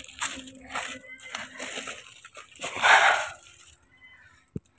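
Footsteps crunching and rustling on ground littered with scraps and debris: a few irregular steps, the loudest about three seconds in, followed by a single sharp click near the end.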